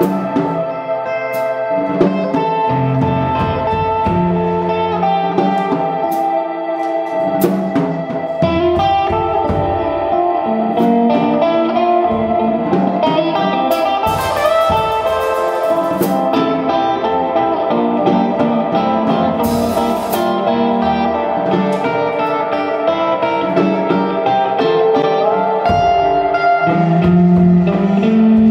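Live free-improvised ensemble music: electric guitars with piano and drum kit, sustained notes and scattered struck accents, with cymbal washes about halfway through and again a few seconds later.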